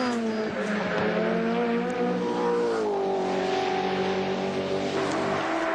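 Holden VL Commodore Group A V8 race car running along the track. The engine note dips in pitch at the start, then climbs about three seconds in and holds. It is held at lowered revs to save fuel.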